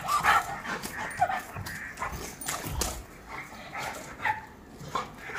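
A Rottweiler and a bully kutta greeting nose to nose, with a few brief, faint whines among scattered short clicks and scuffling.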